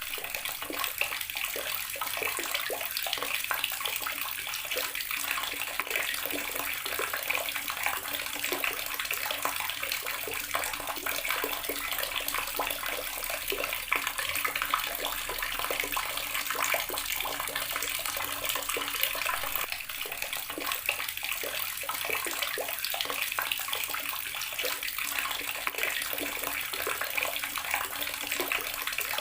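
Outdoor garden water tap running steadily, its stream splashing continuously without a break.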